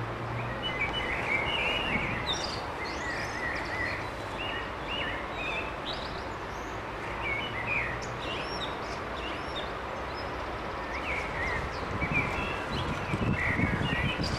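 Songbirds chirping and calling again and again over the steady low rumble of a heavy diesel locomotive's engine; the rumble grows louder and more uneven about twelve seconds in.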